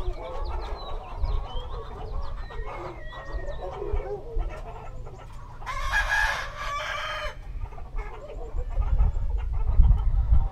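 A flock of chickens clucking, with a rooster crowing once about six seconds in. A low rumble grows louder near the end.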